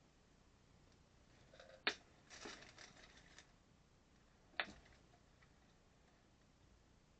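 Lego Technic plastic pieces handled and snapped together: two sharp clicks about two and a half seconds apart, with a brief clatter of pieces between them.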